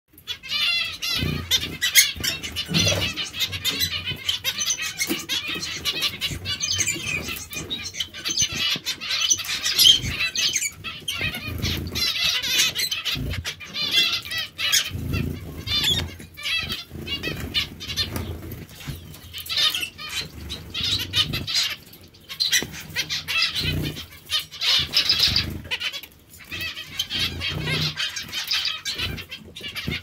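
Zebra finches bathing at a metal water bowl: wing-flapping and splashing thumps come again and again over a continuous chatter of many short chirping calls.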